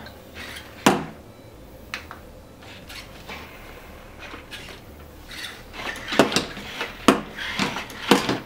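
Plastic clicks and knocks from the Spin Master Legendary Yoda animatronic toy's moving arms and cane mechanism. There is one sharp knock about a second in and a lighter one at two seconds, then a run of several clicks and knocks from about six seconds to the end.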